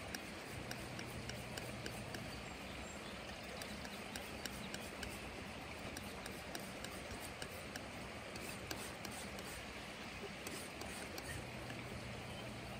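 Metal palette knife mixing and spreading oil paint on a palette, giving soft scraping with many small faint clicks, over a steady background hiss.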